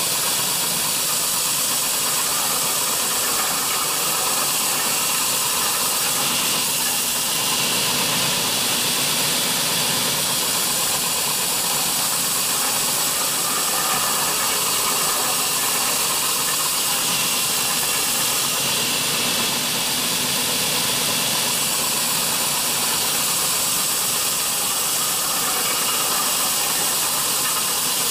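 MM2012A double belt sanding machine running, its abrasive belts sanding a round wooden rod carried through by a rubber feed wheel. It makes a steady, even noise, brightest in the high range, that holds at one level throughout.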